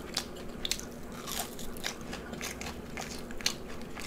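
Close-miked crunching and chewing of a crispy breaded zucchini fry, a run of irregular sharp crunches.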